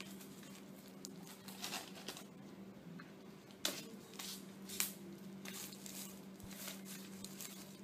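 Soft rustling and crinkling of a CD album's packaging as it is carefully unwrapped and opened by hand, with a couple of sharper crackles partway through. A faint steady hum runs underneath.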